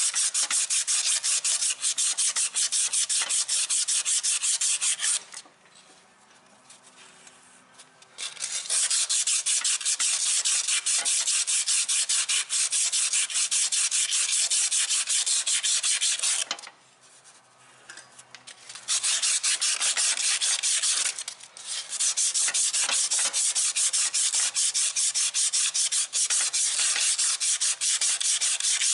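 120-grit sandpaper rubbed rapidly back and forth on the rusty steel end of a Briggs & Stratton engine's crankshaft, scouring off rust so a seized pulley can slide off. The rubbing comes in three long spells, stopping for a few seconds about five seconds in and again just past halfway.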